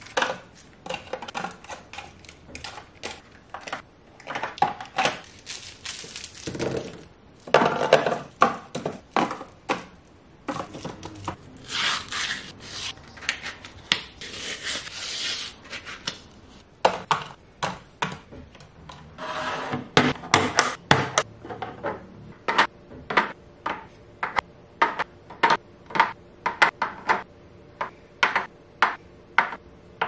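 Groceries handled and set into clear plastic organizer bins: rustling and crinkling of food packaging, with taps and clicks of items put down in plastic containers. Later comes a steady run of light clicks, about two a second, as eggs are set one by one into a clear plastic egg tray.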